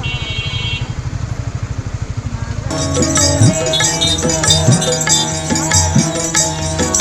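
A motorcycle's single-cylinder engine idling with an even pulse, with a short high tone near the start. About three seconds in, folk-style music with tabla starts abruptly and takes over.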